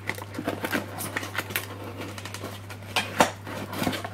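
Cardboard packaging being handled: the flaps of a small white box for a mug rustle, scrape and tap as hands pull it open, with a couple of sharper knocks about three seconds in.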